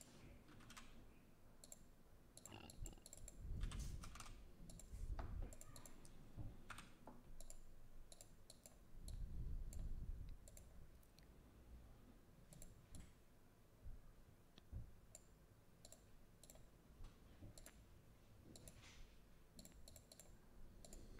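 Faint, scattered computer mouse clicks and a few key taps over near-silent room tone, with a few soft low bumps.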